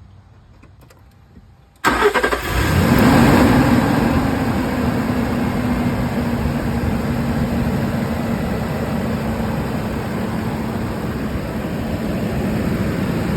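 2016 Nissan Frontier SV engine starting about two seconds in and settling into a steady, really loud roar from the engine cooling fan, which never stops spinning: a bad fan clutch.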